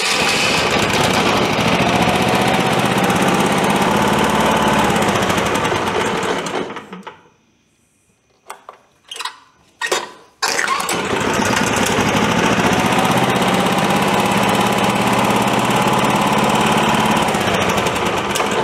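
A freshly valve-adjusted Predator 420cc single-cylinder OHV engine on a longtail mud motor runs steadily, then is shut off about six and a half seconds in. A few short knocks follow, and the engine starts again with a sudden catch about ten and a half seconds in and runs on to near the end.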